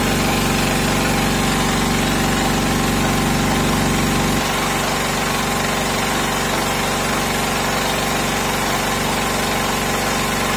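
Sakura Storm D9000E generator's engine running steadily under load from a load bank, a continuous drone. Its deeper part drops off abruptly about four and a half seconds in.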